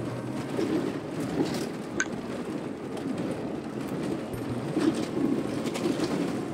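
Motor vehicle running along a rough hill road, heard from inside the cabin: a steady engine and road rumble that swells and eases, with a few short knocks and rattles.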